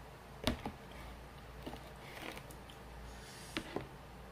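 Bottles being handled and set down on a tray: a plastic squeeze bottle and a small glass hot-sauce bottle. A sharp knock comes about half a second in, a fainter one in the middle, and two quick knocks near the end.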